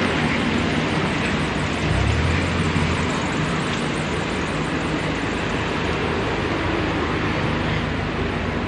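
Street traffic on a wet road: a steady hiss of tyres and engines, with the heavier low rumble of a passing vehicle about two seconds in.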